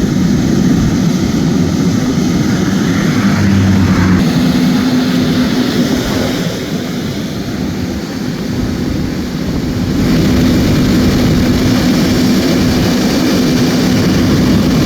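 A large engine running steadily with a low hum, under a constant rushing noise. It eases off a little midway, then comes back up.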